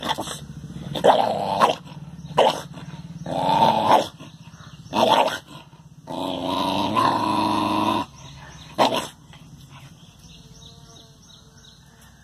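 A dog growling and barking in a run of loud outbursts, the longest a growl of nearly two seconds, then falling quiet after a sharp click about nine seconds in.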